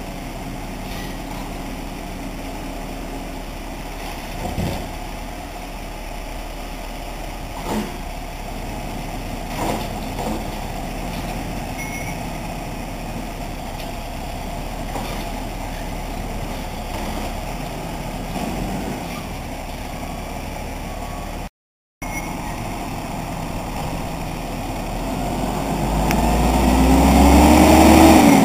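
Peterbilt Curbtender side-loader garbage truck running at the curb while its automated arm lifts and dumps a cart, with a few knocks as the cart is handled. Near the end the engine revs up and grows loud, its pitch rising as the truck drives up close.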